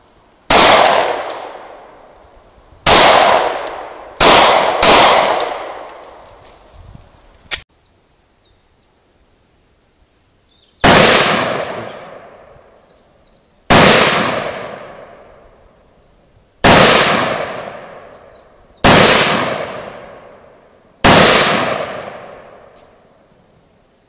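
Four pistol shots from an H&K P30L in quick succession, then, after a break, five single semi-automatic shots from a Radom Sport (Beryl) 5.56 mm rifle, fired two to three seconds apart. Every shot rings out with a long echoing decay.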